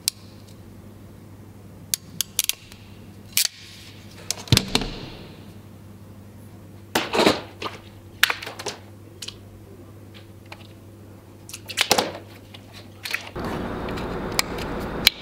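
Irregular sharp clicks and snaps of a ratcheting wire crimping tool and cutters as electrical wires are cut and their connector ends crimped, over a low steady hum. A scratchy rustling of wire being handled fills the last two seconds.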